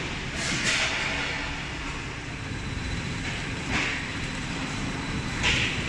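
Spindle veneer rotary lathe running: a steady low mechanical rumble, with three short hissing swells.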